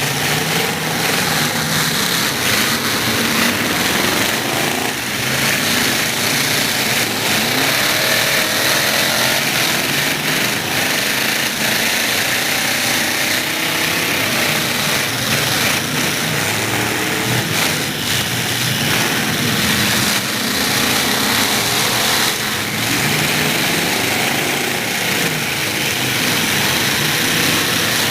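Several demolition derby trucks' engines running and revving at once, their pitch rising and falling, with a few sharp bangs of impacts.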